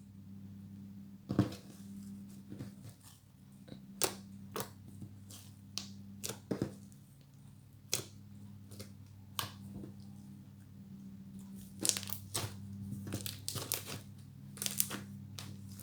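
Fluffy slime worked by hand, giving off irregular sharp clicks and crackles, over a steady low hum.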